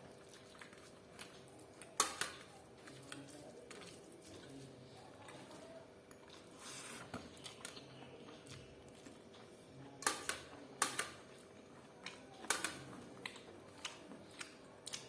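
Close-up eating sounds of chicken dry fry and jeera rice: scattered sharp clicks and crunches of chewing and food handling, with a loud one about two seconds in and a cluster of loud ones around ten to twelve seconds in.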